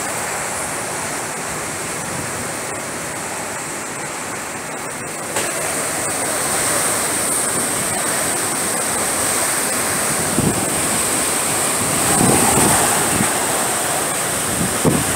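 Hurricane wind and rain: a steady rush of noise that grows louder about five seconds in, with gusts buffeting the microphone toward the end.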